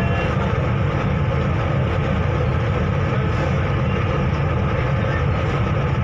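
A river boat's engine running steadily: a constant low drone with no change in level.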